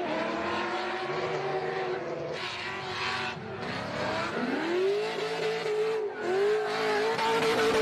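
Toyota Supra MK IV's 2JZ straight-six under hard throttle. The pitch falls and climbs with the revs, then holds steady and high for the last few seconds.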